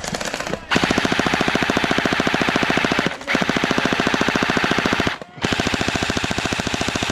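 Electric gel blaster firing full-auto in three long, rapid bursts, with short breaks about three and five seconds in.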